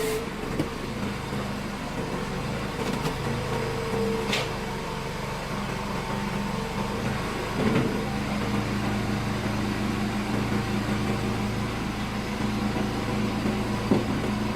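Engine of a hydraulic firewood-splitting machine running steadily, with a change in its note about halfway through and a few sharp clicks and knocks.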